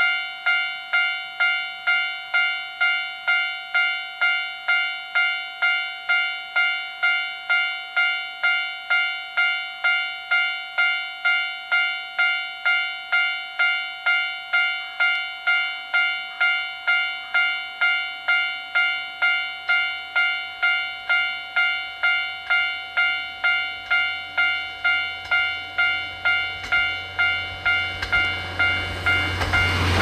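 Railway level-crossing warning bell ringing steadily, about one and a half dings a second, for an approaching diesel railcar. The railcar's low engine rumble grows over the last ten seconds, and it passes close by at the very end with a rush of noise.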